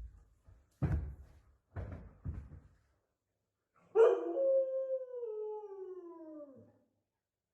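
A few short soft rustles, then a cat's long drawn-out yowl that slides steadily down in pitch over nearly three seconds.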